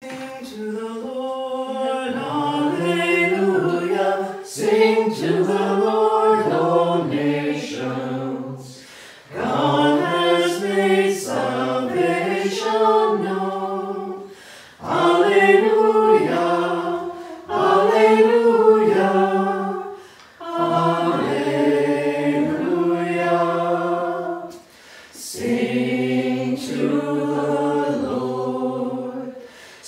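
A hymn sung unaccompanied by a small group of voices, in phrases of a few seconds with short breaks for breath between.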